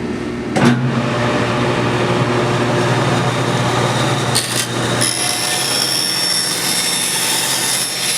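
A 20-inch bandsaw running and cutting through a wooden board in a crosscut, with a sharp knock under a second in as the work meets the blade. About five seconds in the low hum gives way to a high, thin whine.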